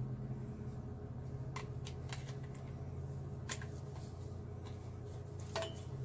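Scattered light clicks and rustles of plastic pop-up drain parts being handled and fitted together, over a steady low hum.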